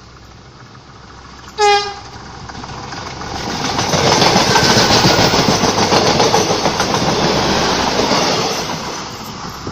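A train horn gives one short blast, then a train passes at speed: the rumble and rapid clickety-clack of wheels over the rail joints build up over about two seconds, run loud for several seconds and fade near the end.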